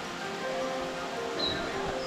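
Background music with sustained held notes, and a brief high chirp about one and a half seconds in.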